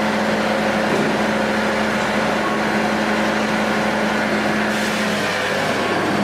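A machine's engine running steadily at constant speed, a continuous hum with an even noise over it and no cutting impacts.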